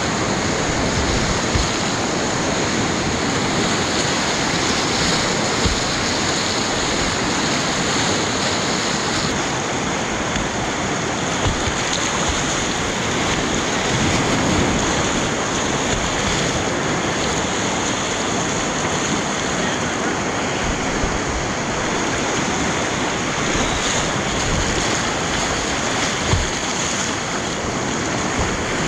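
Whitewater rapids rushing loudly and steadily around a kayak running them, heard close up, with a few brief knocks.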